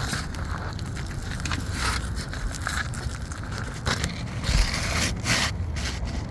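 Irregular scraping and crunching of asphalt roof shingles being handled and worked on, with a low steady rumble underneath.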